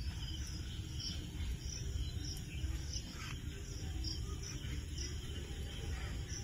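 A cricket chirping steadily, about two short high chirps a second, over a low background rumble.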